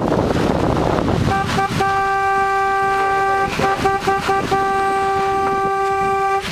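A vehicle horn held down in one long steady blast of about five seconds, broken briefly a few times, after a second or so of wind-like rushing noise.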